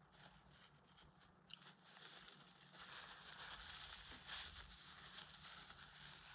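Faint rustling and crinkling of a fast-food sandwich wrapper, a few soft clicks at first, then steady crinkling from about two and a half seconds in.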